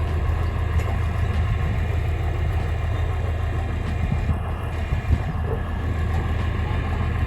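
A vehicle engine running steadily, a constant low drone.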